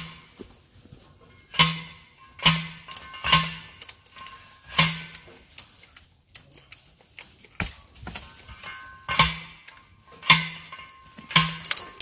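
Steel fence T-posts being driven with a post driver: a run of ringing metal clangs, roughly one a second, with a pause of a couple of seconds midway.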